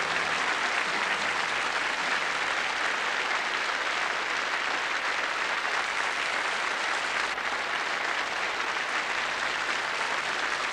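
Live concert audience applauding steadily.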